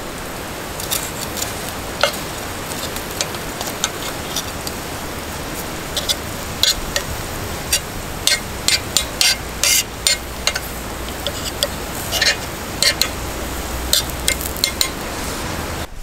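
Garlic slices sizzling in oil on a steel griddle plate over a wood fire, a steady hiss. Many sharp ticks and taps, most of them in the second half, as a knife blade scrapes and moves the garlic across the plate.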